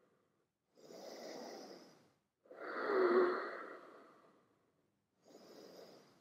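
A person breathing deeply and audibly while holding a yoga pose: a soft breath about a second in, a louder, longer breath around three seconds, and a faint one near the end.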